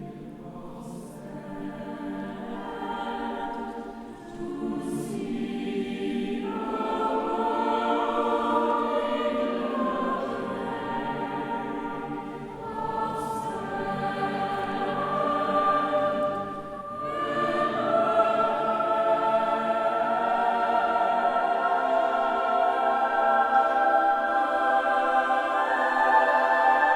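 Concert choir singing a slow piece in long, held chords, with short breaks between phrases at about four, twelve and seventeen seconds in. The singing grows louder toward the end.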